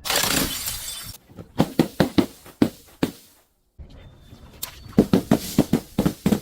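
Glass shattering, then a quick run of sharp crunching cracks as the pieces are crushed. The sound breaks off briefly and more cracks follow.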